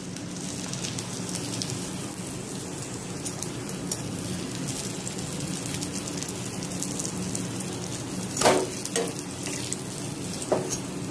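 Oil sizzling and crackling steadily around a cornflake-coated sandwich shallow-frying in a nonstick frying pan, the coating browning to a crisp. Two brief knocks of the steel slotted spoon and fork against the pan, about eight and a half and ten and a half seconds in.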